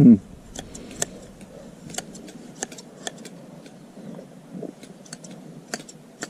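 Hand blade shears snipping through a sheep's fleece: a string of sharp metallic clicks, one for each closing of the blades, at an uneven pace of about one or two a second.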